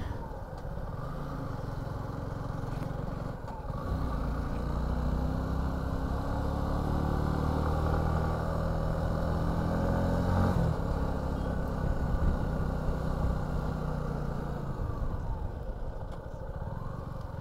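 Suzuki V-Strom 250 motorcycle engine running under way, its revs climbing steadily from about four seconds in, dropping sharply about ten seconds in, then easing off and falling.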